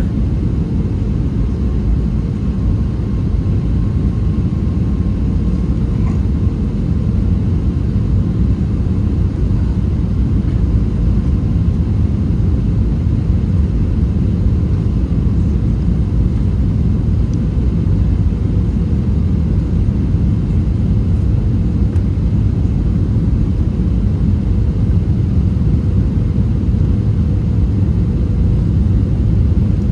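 Steady low rumble of airflow and engine noise inside an Airbus A321 cabin on final approach, with a faint steady hum above it.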